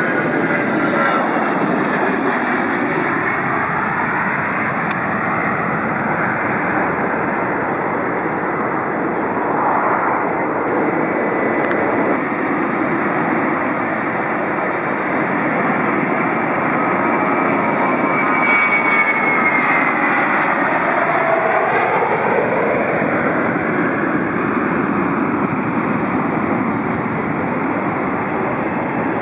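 Jet airliner engines running loud and steady, swelling twice as aircraft pass, with a sweeping, phasing whoosh each time.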